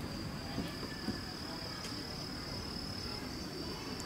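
Insects singing in a steady, unbroken high-pitched trill over a low background rumble, with a couple of faint knocks about a second in.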